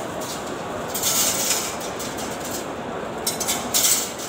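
Steady hubbub of a large crowd of pilgrims, with short bursts of high clinking about a second in and again near the end.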